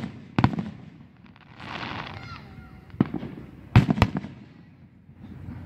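Aerial firework shells bursting: a bang about half a second in, then three bangs between three and four seconds in, the last two the loudest.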